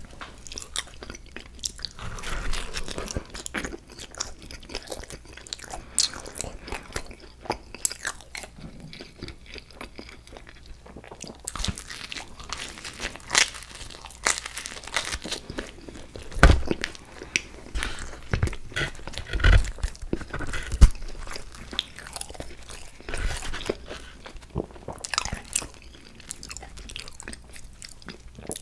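Close-miked eating: a person biting and chewing crunchy food, with sharp crunches throughout and a few heavier bites about two-thirds of the way through.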